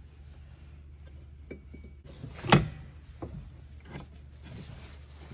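Metal shaft being worked by hand through the headlight actuator rod end and pivot bracket of a 1972 Corvette: a few small metal clicks and one sharp clack about two and a half seconds in as it goes through.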